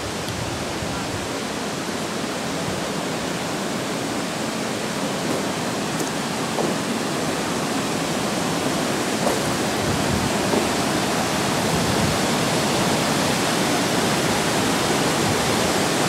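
Steady rush of water from a waterfall on a stream, growing gradually louder.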